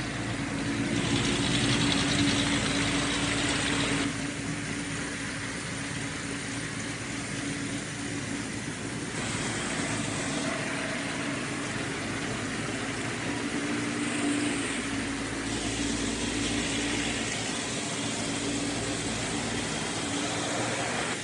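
A car engine idling steadily, with a louder stretch a second or so in that lasts about three seconds.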